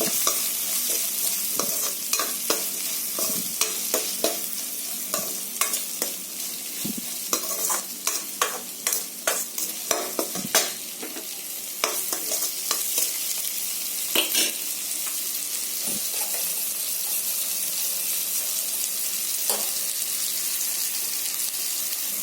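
Onions, tomato and turmeric frying in oil in a kadai: a steady sizzle, with a utensil repeatedly clicking and scraping against the pan as the mixture is stirred. The stirring stops about two-thirds of the way through, leaving only the sizzle.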